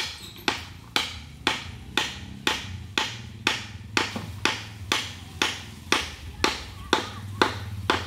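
Hammer striking a wooden pole that stands on a plank, steady blows about two a second.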